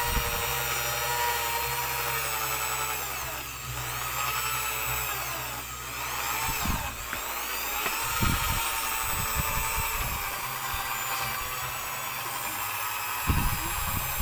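Electric drill with a long mixing rod running steadily as it churns a bucket of homemade dishwashing liquid, mixing until the SLES paste dissolves. Its whine dips in pitch and comes back up twice, about a third and about halfway through, as the speed is eased off.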